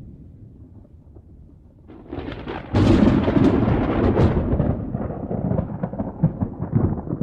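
Dry thunder with no rain. A low rumble swells about two seconds in, breaks into a loud crackling peal just under three seconds in, then rolls on in ragged, crackling rumbles.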